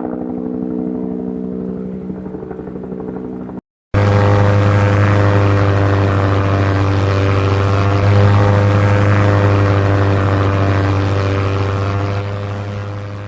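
Small battery-powered DC motor spinning a toy propeller, a steady buzzing hum. It cuts out briefly about three and a half seconds in, then runs again louder and fades near the end.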